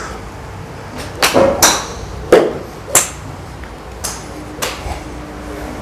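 Golf clubs striking balls at a driving range: about seven sharp cracks from several hitters. They come close together in the first three seconds, where they are loudest, then two fainter ones follow.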